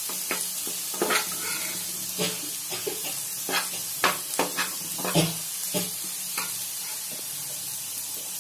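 Diced potatoes sizzling in oil on a flat dosa griddle while a steel spatula scrapes and clacks against the griddle in irregular strokes, turning them once the first side has browned. The scraping stops after about six seconds, leaving the steady sizzle.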